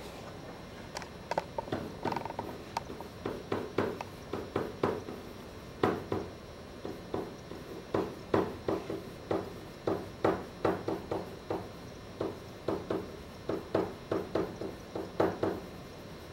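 A pen writing on a whiteboard: a quick, uneven run of short taps and scratches as words are written, in clusters with brief pauses between.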